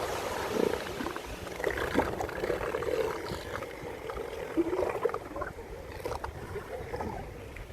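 Elephant seals snoring and grunting in a group: an irregular low rasping with a few louder snorts, the loudest about two seconds and four and a half seconds in.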